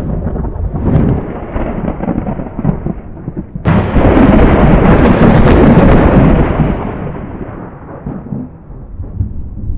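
Thunder: a low rumble, then a sudden loud crack a little under four seconds in that rolls on for about three seconds and slowly dies away.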